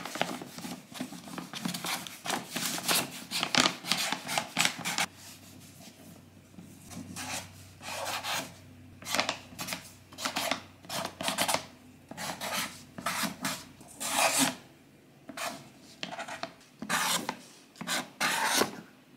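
Black felt-tip marker scratching across the brown paper wrapping of a package as words are written out in quick, rasping strokes. The strokes come thick for the first few seconds, stop for about two seconds, then resume in short groups with brief pauses between them.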